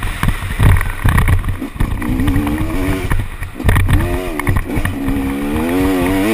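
KTM 250 SX two-stroke motocross engine under throttle while riding, its pitch rising and falling as the rider rolls on and off the gas. The engine note holds high from about four seconds in and climbs near the end, over a rumbling low noise and occasional thumps.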